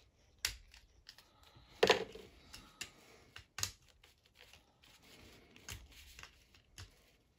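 Plastic parts of a Transformers Warpath action figure clicking and snapping as they are folded and pressed into place during transformation to tank mode. There are several sharp clicks, the loudest about two seconds in.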